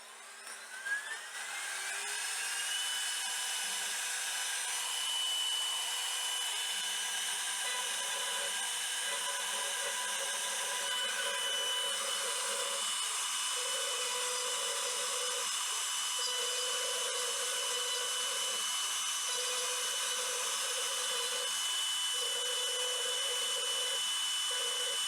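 CNC router spindle spinning up with a rising whine that levels off after about three seconds, then running at a steady high whine. A lower cutting noise comes and goes every second or two as the bit works the wood.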